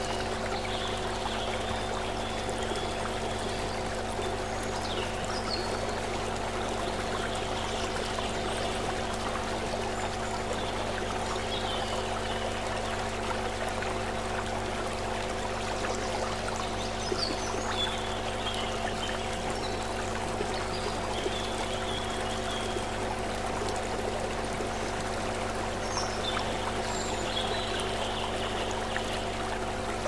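Shallow stream water running steadily over stones, an even rushing burble. Beneath it sits a steady low hum of several held tones, with short high chirps every few seconds.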